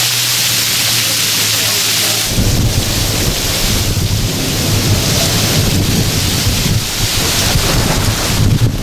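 Heavy rain hissing down in a thunderstorm. About two seconds in, a long, low rumble of thunder starts up and rolls on, rising and falling, over the rain.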